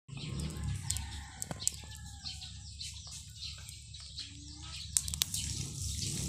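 A plastic plate fanned quickly back and forth over a charcoal grill, giving a rhythmic whoosh of air gusts to raise the coals for grilling, with a few sharp clicks about one and a half seconds in and again near five seconds.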